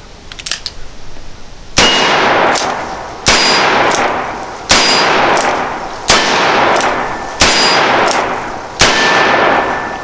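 Six shots from a Ruger New Vaquero .45 Colt single-action revolver firing 255-grain hard-cast lead loads, evenly spaced about one and a half seconds apart. Each shot is sharp and loud, with a long ringing echo that dies away before the next.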